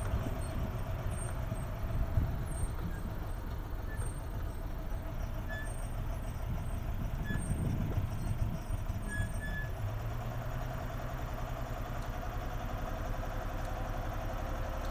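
Engine of an open safari game-drive vehicle running steadily as it drives slowly along a dirt track, a continuous low rumble with a steady hum over it.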